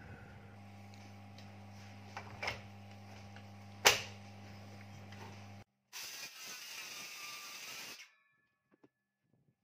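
A steady low hum with a sharp click a little before four seconds in; then a cordless Makita circular saw runs for about two seconds, its blade cutting across the end of a thick timber beam, and the sound cuts off abruptly.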